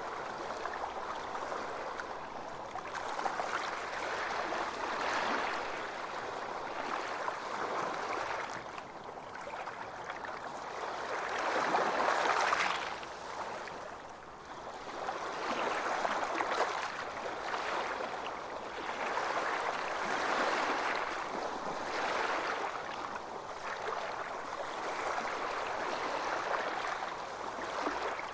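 Ocean surf on a beach: waves breaking and washing in, the noise swelling and fading every few seconds, with the biggest wave about twelve seconds in.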